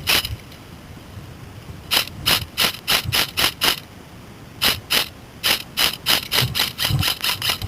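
Airsoft guns firing rapid single shots in runs: about seven sharp snaps starting two seconds in, two more after a short pause, then a faster string of about ten near the end.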